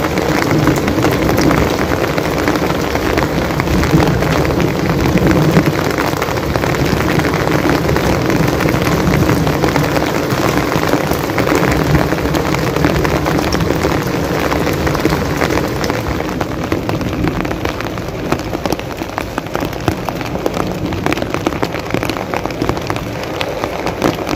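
Heavy rain pouring onto a flat concrete rooftop and splashing into standing water: a dense, steady patter of drops, a little softer in the second half.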